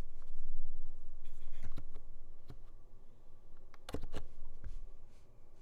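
Leopold FC660C Low-Noise keyboard with Topre capacitive switches: about eight scattered, unhurried keystrokes, each a soft muted click, with two close together near four seconds in.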